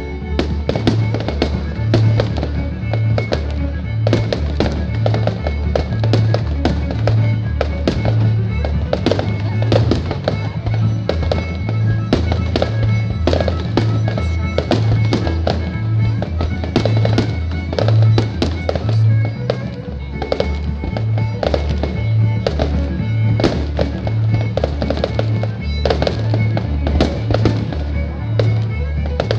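Fireworks going off in a rapid, continuous stream of pops, bangs and crackles, over background music with a steady pulsing bass beat.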